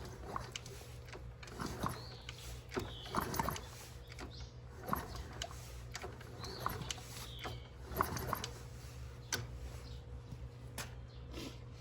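Scattered light knocks and clicks of hand work on a small motorcycle, over a steady low hum, with a few faint high chirps.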